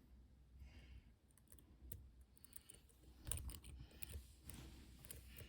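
Faint, irregular clicks and scrapes of a dimple pick and tension wrenches working the pins inside an MCM dimple lock, growing busier and a little louder about three seconds in. A soft breath about a second in.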